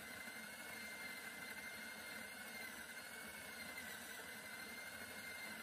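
Electric burr coffee grinder (Bodum Bistro) running steadily, its motor giving a high, even whine that wavers slightly in pitch.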